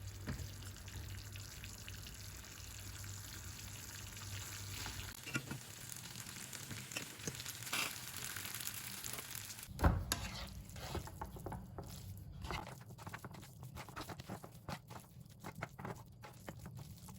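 Food sizzling faintly in a frying pan, then a single knock about ten seconds in, followed by light clinks and clatter of kitchen utensils.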